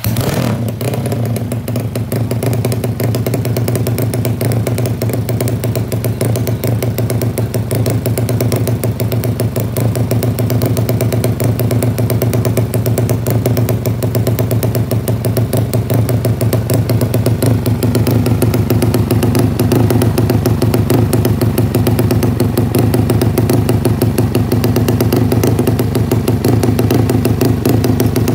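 Road-race motorcycle's Yamaha 5TP single-cylinder four-stroke engine with an open exhaust firing up on the kick start and then running steadily and loudly. It gets a little louder about halfway through.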